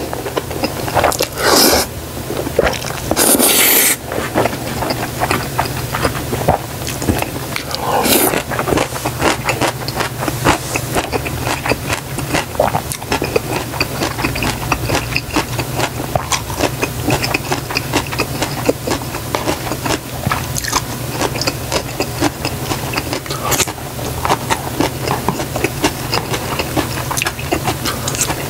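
Close-miked eating of jjajangmyeon, black-bean-sauce noodles: a few loud noodle slurps in the first four seconds and another about eight seconds in, then steady wet chewing and lip smacking. A low steady hum runs underneath.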